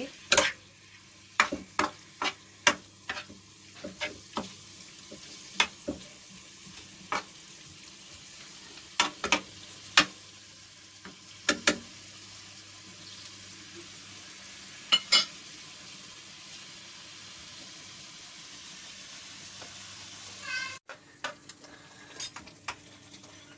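Cuttlefish slices sizzling in hot olive oil in a frying pan while being stirred, the utensil knocking sharply against the pan now and then. The knocks are frequent in the first half. Later only the steady sizzle remains.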